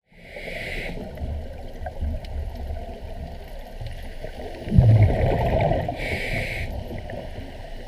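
Scuba diver breathing through a regulator underwater: a short hissing inhale near the start and again about six seconds in, and a loud gurgling rush of exhaled bubbles about five seconds in, over a steady underwater rumble.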